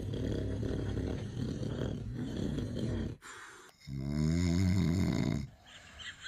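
A person snoring: a long rattling snore for about three seconds, then, after a short pause, a second snore with a clearer pitch.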